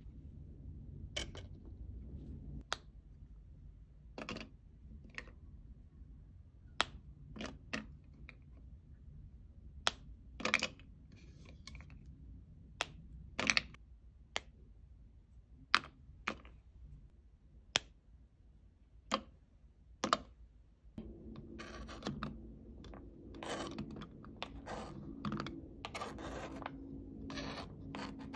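Handling of candle wax: a knife clicking through wax chunks onto a plastic cutting board, and wax pieces snapping and tapping into a plastic measuring jug, as scattered sharp clicks every second or two. Near the end, denser scraping and rustling as chunks are slid off the board into the jug.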